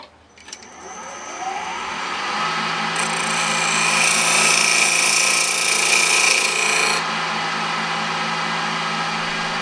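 Wood lathe motor spinning up with a rising whine, then running steadily. From about three to seven seconds a louder hiss is added as sandpaper is pressed against the spinning wooden workpiece.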